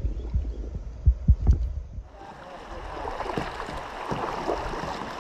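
Low thumps and rumbling from the microphone being handled, then, about two seconds in, water lapping and splashing steadily around a kayak being paddled on a river.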